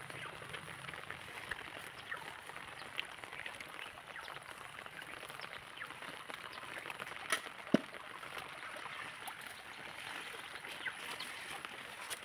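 Dense fern and shrub foliage rustling as fern shoots are picked by hand, with many small snaps and clicks and two sharper cracks about seven and a half seconds in.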